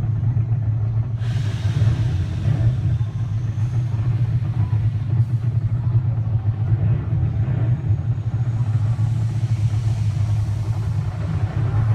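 Roller coaster train and ride machinery just after dispatch: a steady, loud low hum with a rushing, rumbling noise over it that swells about a second in and again near the end.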